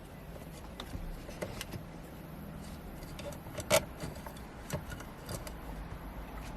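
Scattered light clicks and taps of small parts and tools being handled, with one sharp click a little past the middle, over a low steady hum.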